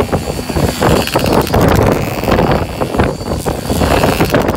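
Minimoto pocket bike's Polini 4.2 two-stroke engine running as the bike circles, with wind buffeting the microphone.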